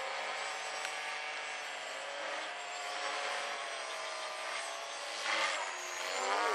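450-size electric RC helicopter in flight: a steady whine from the motor and drivetrain over the swish of the rotor blades. The pitch rises and falls as it manoeuvres, with a louder surge about five seconds in.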